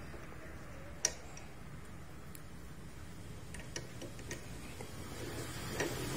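Small metal clicks and taps as diesel fuel injector parts (plunger, spring, nozzle tip) are handled and fitted together, a sharper click about a second in and a few fainter ones after, over a steady low hum.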